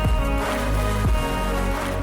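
Background pop music with a heavy bass and a steady beat, an instrumental gap between sung lines.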